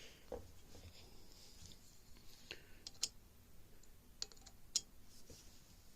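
Faint, scattered light clicks and taps of a small tool and metal parts on a Marlin 80 rifle's trigger group while the safety selector is being removed, about five clicks in all.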